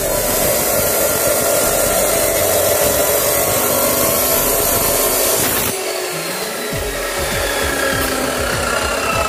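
Hikoki CC14STD 355 mm cut-off machine's abrasive disc grinding through steel rod, a steady harsh grinding hiss. The cut breaks off about six seconds in, with the motor still running, as the next rod is fed in.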